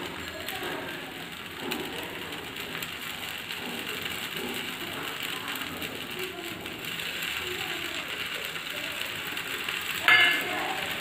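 Oil and rava batter sizzling and crackling in the cavities of a non-stick appe pan on the gas flame, a steady dense crackle. A short louder clink about ten seconds in.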